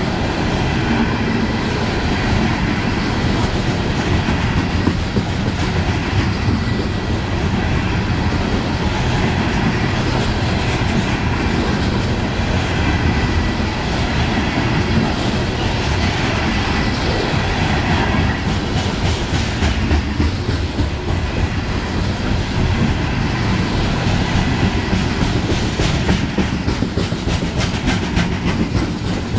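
Coal train's steel hopper cars rolling past, their wheels clicking over the rail joints above a continuous rumble.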